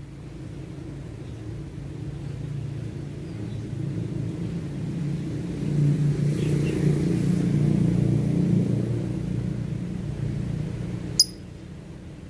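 Low rumble of a vehicle engine that swells to its loudest around the middle and then fades, as a vehicle passes. A single short, high bird chirp sounds near the end.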